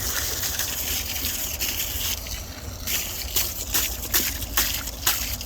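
Water splashing and trickling over a box fan being washed, with a run of sharp splashes in the second half.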